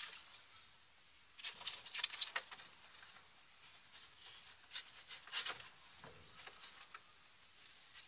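Faint scratching and pattering of quails moving about on wood shavings, in two short spells of quick light ticks, each about a second long.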